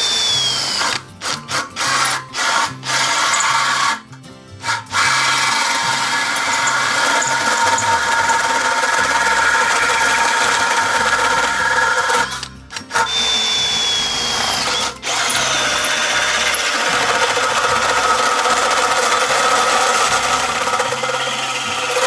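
Stanley FatMax SBD715D2K brushless cordless drill driving a 42 mm hole saw into a box. It starts with a few short trigger pulls, then runs steadily under load, with two brief stops where the motor whine falls away.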